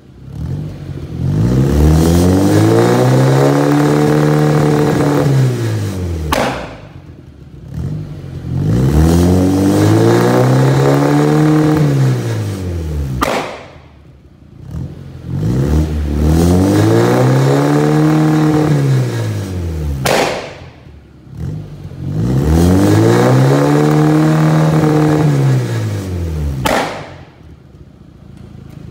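Volkswagen Jetta Mk2's four-cylinder engine revved four times, each rev rising and falling in pitch over about five seconds, with a sharp bang from the exhaust as each rev drops off. The bangs come from a spark plug welded into the exhaust and fed by a second ignition coil on a switch, igniting the exhaust gases.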